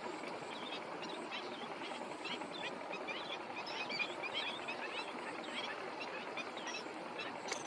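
Many short bird chirps over the steady noise of a tractor plowing a field, the chirps thickest in the middle, with one brief click near the end.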